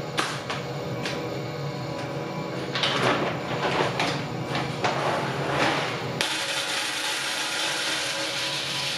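Clear plastic bag of green coffee beans rustling and crinkling as it is handled and opened, then, from about six seconds in, a steady rush as the beans pour from the bag into a plastic pitcher on a scale.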